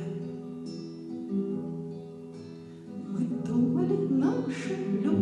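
Classical acoustic guitar playing chords as accompaniment between sung lines of a song: ringing notes that soften for a moment, then stronger strumming from about three seconds in.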